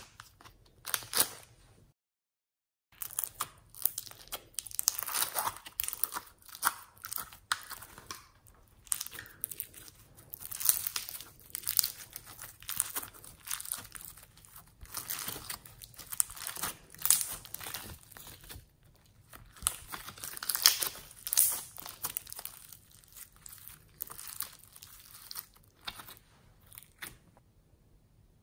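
Yellow floam, slime packed with tiny foam beads, crunching and crackling as fingers squeeze and pull it, in quick repeated bursts.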